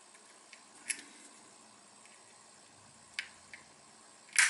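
A few small, sharp clicks of metal lighter parts being worked into place with a small hand tool, the loudest near the end.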